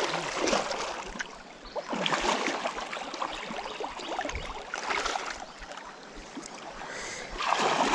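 Legs wading through a flowing creek, the water sloshing in irregular surges every couple of seconds over the steady rush of the current.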